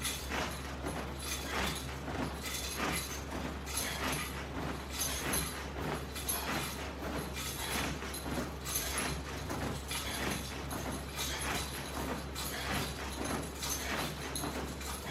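Rhythmic swishing noise of a person doing exercise repetitions, a short burst roughly every second or so, over a steady low hum.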